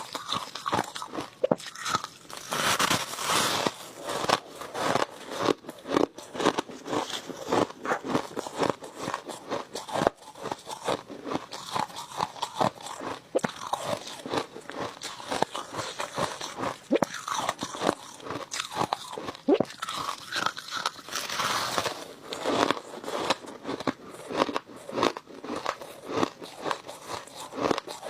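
Crushed ice being bitten and chewed close to the microphone, with dense, irregular crunches, several a second.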